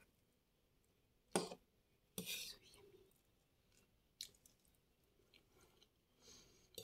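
Mostly near silence, broken by a few brief soft clicks and taps of someone eating cake with a fork, three short sounds spread over the first half.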